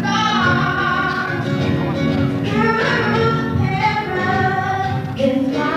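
Music: a group of voices singing a song over instrumental backing, holding long notes.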